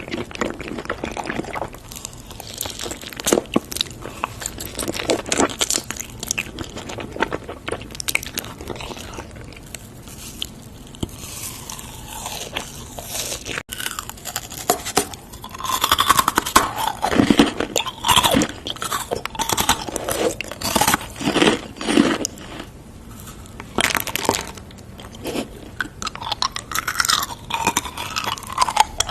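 Close-miked crunching and chewing of food, a dense run of irregular crisp crunches with bites and wet mouth sounds, busier and louder in the second half.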